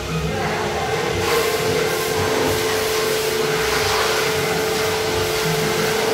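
Car-wash machine's electric motor running steadily: a constant hum with one steady mid-pitched tone over a noisy hiss.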